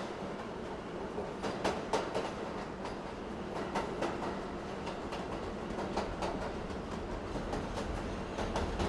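Subway car in motion, heard from inside: a steady rumble of wheels on the track with irregular clacks and rattles, the low rumble swelling near the end.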